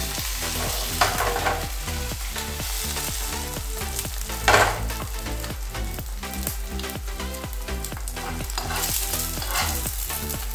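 Beaten egg with chopped onion sizzling in hot oil in a non-stick frying pan, while a metal spoon scrapes and pushes the omelette around the pan. A louder knock about four and a half seconds in.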